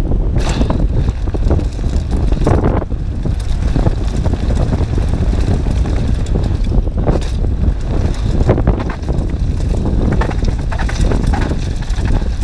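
A downhill mountain bike running fast over a loose gravel trail: steady low wind rumble on the action camera's microphone, with tyre crunch and irregular clattering rattles from the bike over bumps.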